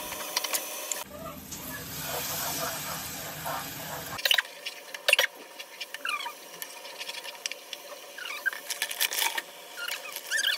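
Onion and spice paste sizzling in a non-stick cooking pot as it is fried down and stirred with a spatula, with short squeaks and scraping clicks from the spatula on the pan. A steadier hiss runs from about one to four seconds in.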